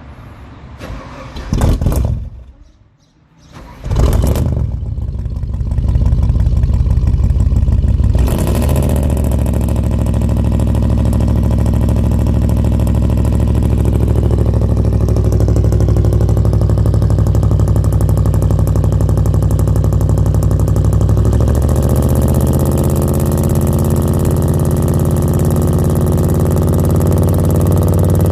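Microbus engine heard through its exhaust, starting about four seconds in after a brief earlier burst. It runs fast for a few seconds, then settles into a steady, deep idle.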